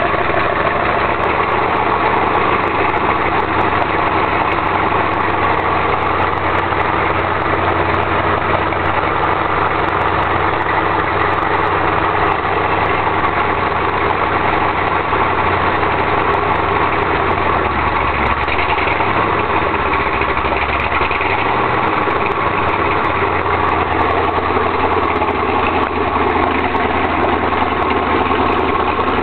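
Sutphen jet boat's engine idling steadily, run out of the water just after starting. Its speed dips and picks back up briefly about two-thirds of the way through.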